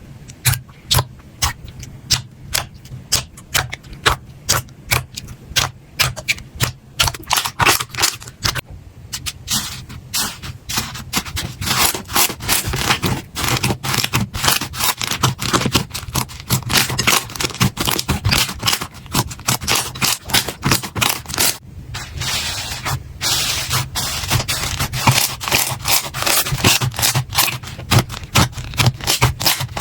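Slime being pressed and squished by hand close to the microphone, making repeated sharp crackling clicks. The clicks come about two a second at first, then turn fast and dense, with a brief pause near the end.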